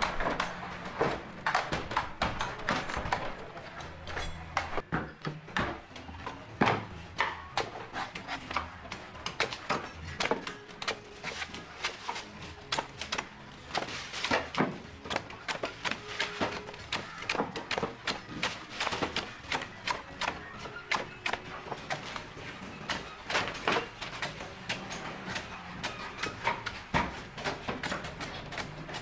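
Large knife chopping the green husk off young coconuts on a wooden block: a rapid, irregular run of sharp strikes, several a second.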